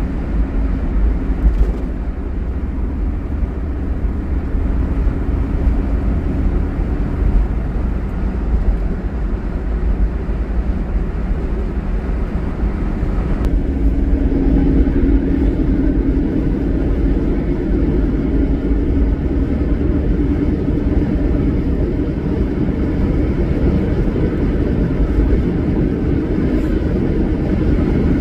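1971 Dodge Challenger convertible driving on the road: a steady engine and road rumble, with the engine note growing a little louder about halfway through.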